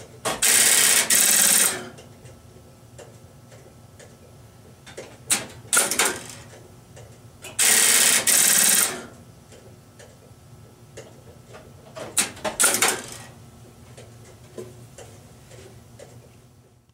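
Western Electric step-by-step (Strowger) line finder switches at work: sharp relay and magnet clicks, and twice about a second and a half of rapid stepping clatter as a line finder hunts for the calling line. A further cluster of clicks comes near the end, then the sound fades out.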